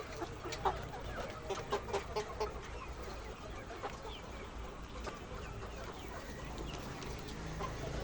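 Many chickens clucking in a poultry house, with short calls coming thickest in the first couple of seconds, over a steady low hum.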